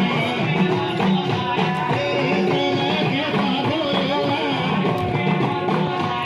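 Background music with guitar and a wavering melodic line, at a steady level.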